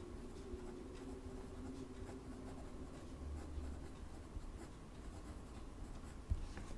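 A Montblanc Meisterstück Classique fountain pen's nib scratching faintly across Rhodia paper while writing a line of handwriting, with a small tap about six seconds in.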